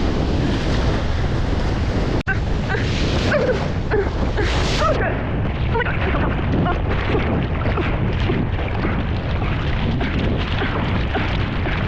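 Strong wind buffeting the microphone over rough, churning surf, a loud steady roar that cuts out for an instant about two seconds in.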